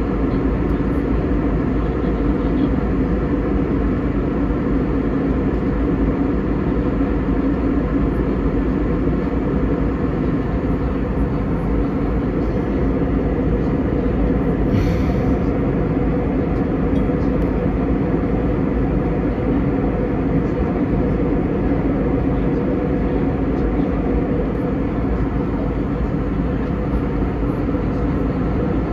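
Steady drone of an Airbus A320 in flight, the engines and rushing air heard inside the passenger cabin; it holds even throughout, with a low rumble and a strong mid hum.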